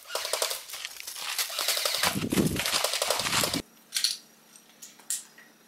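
Airsoft gun firing rapidly on full auto, a fast string of sharp snaps that cuts off abruptly about three and a half seconds in. Two single snaps follow a little later.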